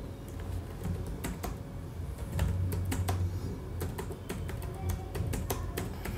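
Keystrokes on a computer keyboard: irregular clicks of typing as a short sentence is entered.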